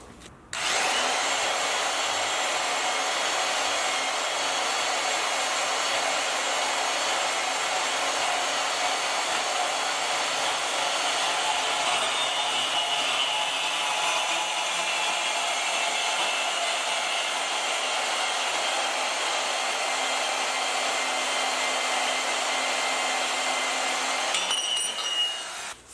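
Power tool cutting through a section of steel roll-cage tubing, running steadily for about 24 seconds and stopping suddenly near the end.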